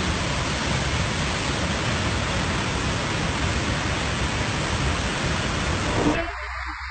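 Waterfall pouring onto a road: a loud, steady rush of falling water that cuts off abruptly about six seconds in.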